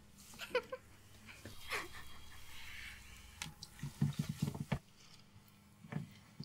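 A few people laughing quietly, with soft giggles early on and a short run of low chuckles about four seconds in.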